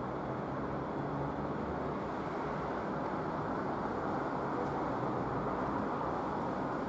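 Steady low rushing outdoor background noise, with no distinct events such as a thunderclap.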